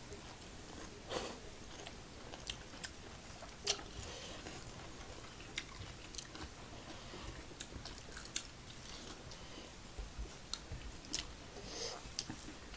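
Close-up chewing and biting of food, with scattered wet mouth clicks and smacks.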